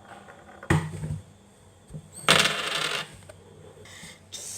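Metal clinks and rattles from a fidget spinner being handled: a short clatter about a second in and a louder, longer one a little past two seconds.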